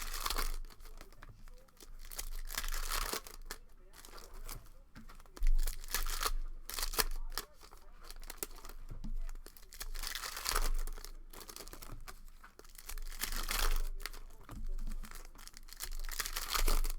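Trading card pack wrappers being torn open and crinkled by hand, in several separate rips and rustles a few seconds apart.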